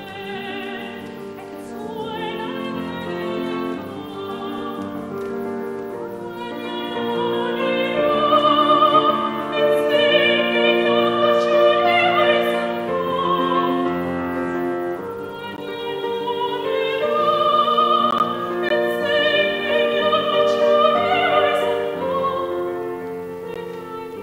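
Operatic soprano voice singing a slow song in Basque with wide vibrato, accompanied by a Steinway grand piano. The singing swells louder about a third of the way in.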